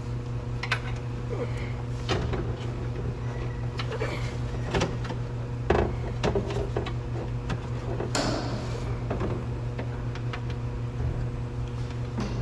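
Irregular clicks and knocks of car door and side-mirror parts being handled as the mirror is removed from a Mazda CX-5 door, with a brief rustle about eight seconds in, over a steady low hum.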